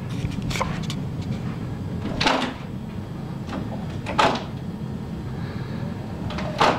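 Interior door with a lever handle rattling and knocking in its frame four times, about two seconds apart, as a cat on the other side jumps at the handle and works the latch open.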